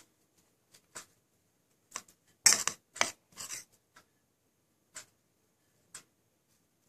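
A clock ticking steadily about once a second. About two and a half seconds in, a short burst of rustling, the loudest sound, lasts about a second.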